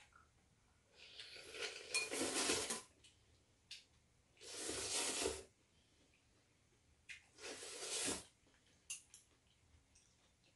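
Ramen noodles slurped off chopsticks three times, each slurp lasting about a second, with a few light clicks of chopsticks against the dishes in between.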